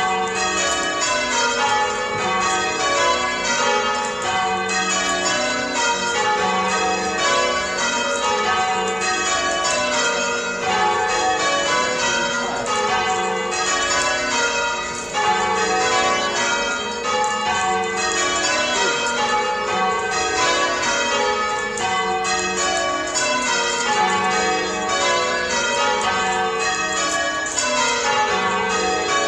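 Church bells being change-rung, the band pulling the ropes below them: a steady, evenly paced run of strokes, the bells striking one after another in an order that keeps shifting.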